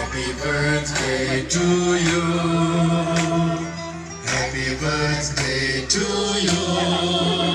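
Music: a song with a singing voice over a steady bass line.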